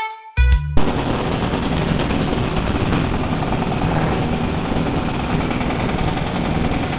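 A short music cue ends in the first second. After that a heavy engine runs steadily under a broad rumble.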